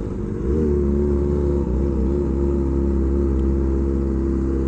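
Kawasaki Ninja ZX-25R's inline-four engine running through an SC-Project aftermarket exhaust. It picks up slightly about half a second in, then holds a steady note.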